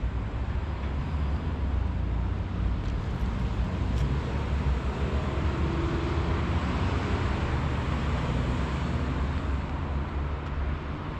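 A motor vehicle passing on a nearby road. Its rumble and tyre noise swell through the middle and fade toward the end.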